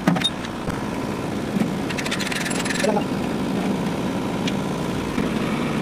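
Tractor engine idling steadily under metal clinks and a short scraping rattle about two seconds in: the plough's hitch pin and clip being worked loose by hand, a clip bent by the strain.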